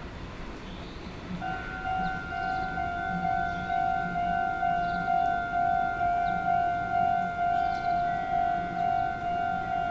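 Japanese railway level-crossing alarm starting about a second and a half in, then ringing a steady two-tone clang about one and a half times a second, warning that a train is approaching.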